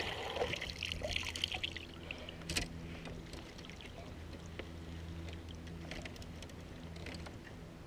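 Water splashing and trickling as a landing net is swept through the lake and lifted out, busiest in the first two seconds, with a sharp knock about 2.5 s in, over a steady low hum.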